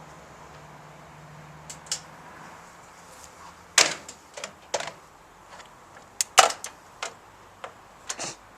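Sharp, irregular cracks and pops, about a dozen, from a light bulb heating, burning and breaking apart inside a running microwave oven. A low hum stops at the first loud crack, about four seconds in.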